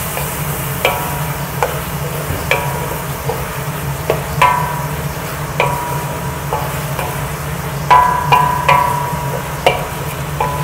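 Wooden spatula stirring prawns and onions in chilli paste in a metal wok, knocking the pan at irregular intervals so that it rings briefly with each strike, over the sizzle of the frying sambal. The knocks are loudest about eight seconds in.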